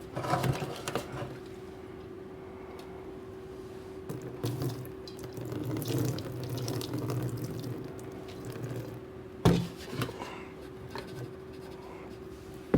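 Liquid pouring and splashing into a container: stale gasoline, thick with water, being emptied from a small engine's fuel system. A steady hum runs underneath, with a couple of sharp knocks about nine and a half seconds in.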